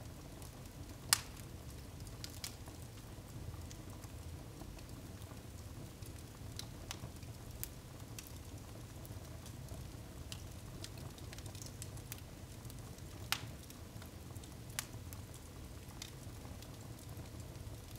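Wood fire burning in a fireplace, crackling with scattered sharp pops, two of them loud: about a second in and again about three-quarters of the way through. A low steady hum runs underneath.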